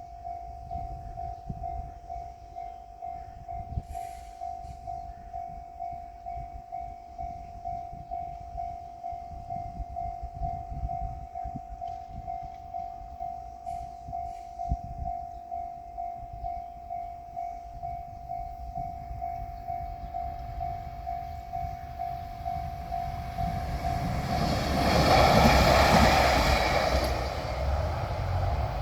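Japanese level-crossing warning bell dinging steadily at about two strokes a second. Near the end a JR Shikoku 2000 series diesel express railcar passes through the crossing, loud enough to drown out the bell.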